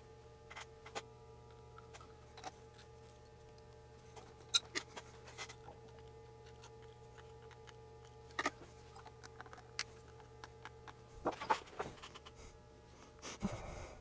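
Scattered small clicks and taps of resistor leads and a metal tool against a circuit board as through-hole resistors are fitted into it, a few of them clustered near the end, over a steady low hum.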